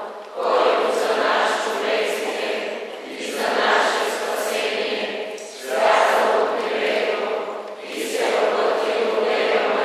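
Choir singing in phrases a few seconds long, with short pauses between them.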